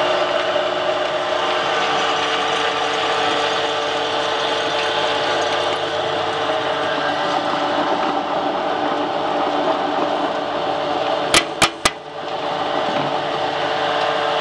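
Home-built flat-die pellet mill with a 160 mm die, driven by a 4 kW electric motor through a Zhiguli gear reducer, running steadily under load while it presses ground feed into pellets. Three sharp clicks in quick succession come near the end.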